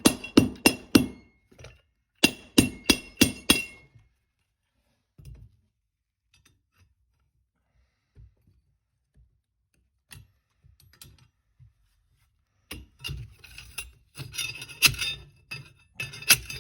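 Hammer blows ringing on metal as a chisel is driven into brick: two quick runs of sharp strikes, about four a second, in the first four seconds. After a pause come scattered knocks, then busier clinking and clattering near the end.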